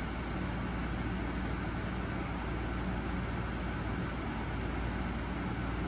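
Steady hum and hiss of a room air conditioner running.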